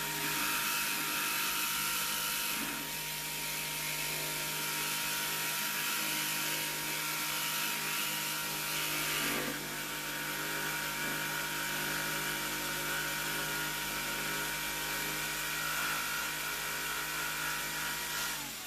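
DeWalt jigsaw running steadily at speed, its blade cutting down through the wooden panel of an aquarium canopy; she thinks the blade went through a nail in the wood. Near the end the motor switches off and its whine falls away.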